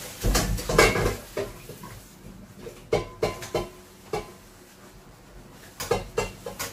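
Kitchen utensil knocking and scraping against a stainless steel cooking pot while food is stirred: a quick cluster of clanks in the first second, then scattered single clinks, some with a short metallic ring.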